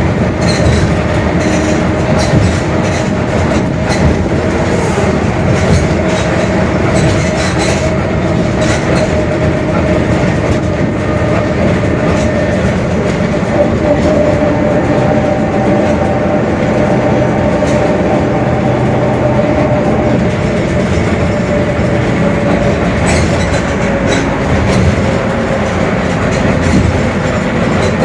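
Mercedes-Benz OF-1721 Bluetec 5 bus on the move: a low engine and road rumble with frequent rattles and knocks, and a steady whine that drifts a little in pitch, the differential droning.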